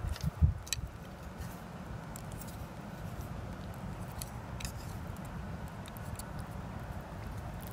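Wooden chopsticks clicking lightly against a metal pot and a noodle cup as meatballs are lifted across, a few sharp taps, most of them in the first second, over a steady low background noise.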